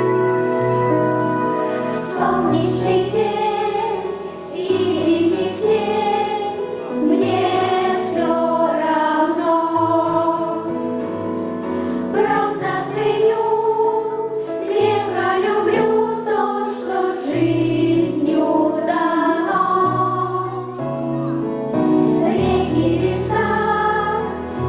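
A vocal ensemble singing together in unison over an instrumental backing track.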